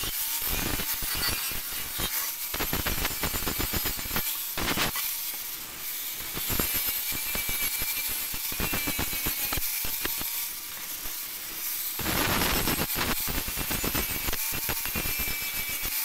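Angle grinder with an abrasive disc grinding rust off a steel shovel blade: a steady high whine under a rough scraping of disc on metal. The scraping eases off briefly twice, about six seconds in and again around eleven seconds.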